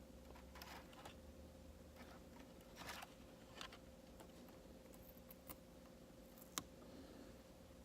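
Faint, scattered clicks and scrapes of a screwdriver tip prying at the small plastic screw covers on a laptop's screen bezel, the sharpest click about two-thirds of the way through, over a faint steady hum.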